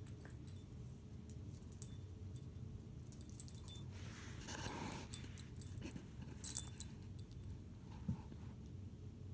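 A small dog's metal collar tags jingling in short scattered clinks as it moves about at play, loudest in a cluster about two-thirds of the way through, with a short breathy snuffle near the middle.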